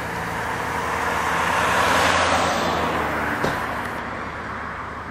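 A car passing on the road, its tyre and engine noise swelling to a peak about two seconds in and then fading away, over a steady low hum.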